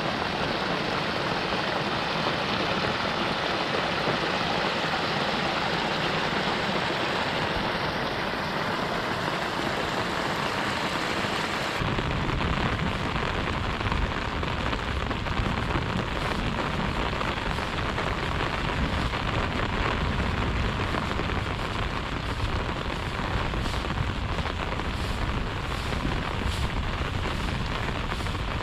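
Heavy rain falling steadily in a monsoon downpour. About twelve seconds in the sound turns duller, with less hiss and a stronger low rumble.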